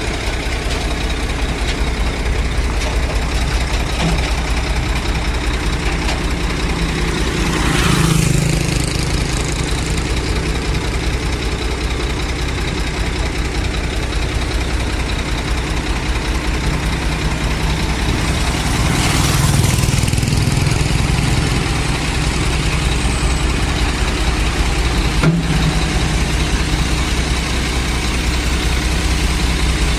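Heavy diesel engine idling steadily, swelling briefly twice, once about a quarter of the way in and again past halfway. A single sharp click comes later.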